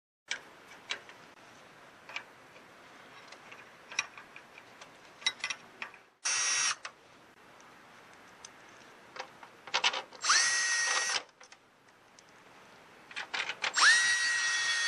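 Cordless power screwdriver driving the screws of a pickup's parking-lamp lens: three short runs, each starting with a quick rising whine that then holds steady, the last one the longest. Before them come scattered light clicks and taps of the tool and bit against the parts.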